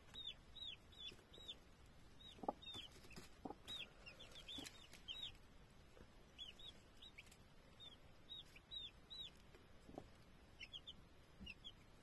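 Three-day-old chicks peeping softly in short, high chirps, many of them scattered through, with a few brief low clucks from the broody hen.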